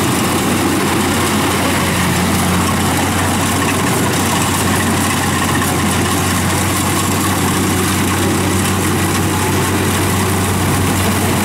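Kubota rice combine harvester's diesel engine and threshing machinery running steadily with a low, even hum as it drives through standing rice.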